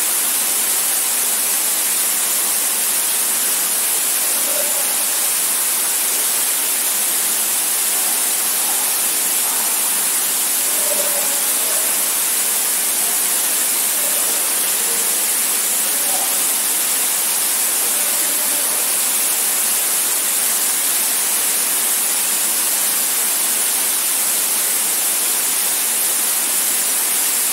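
Waterfall rushing into a pool, heard as a steady, loud hiss, heaviest in the high end with almost no low rumble.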